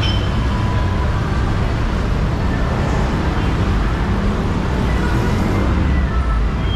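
Steady street traffic: vehicle engines and tyres making a continuous low rumble.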